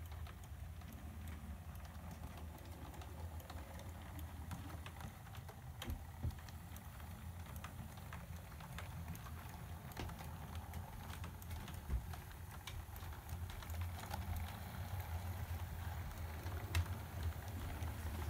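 Model train running on the layout's track: a steady low hum from the locomotive's motor and power supply, with irregular light clicking as the wheels of the locomotive and its coaches pass over rail joints and points.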